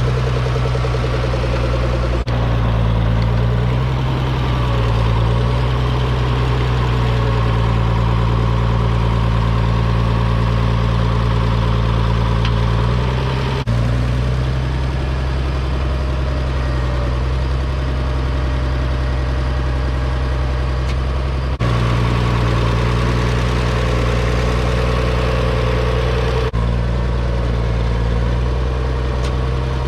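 Farmall 806's six-cylinder diesel engine running steadily, with brief breaks a few times where the sound jumps.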